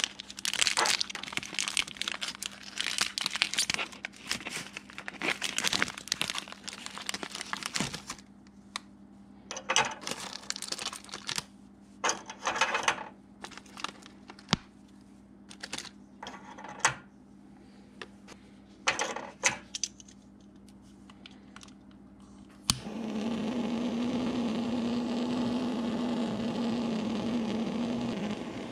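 Plastic wrapping on dry fuel tablets crinkling and tearing in irregular bursts as it is unwrapped. About 23 seconds in, a torch lighter clicks on and burns with a steady hiss as it lights the fuel in the steam engine's burner tray.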